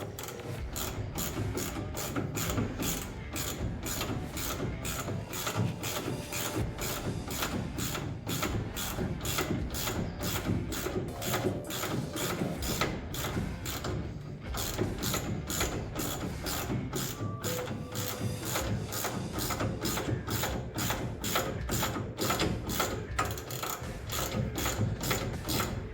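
Hand socket ratchet clicking steadily, about two to three clicks a second with a short break about halfway, as suspension bolts are cranked tight.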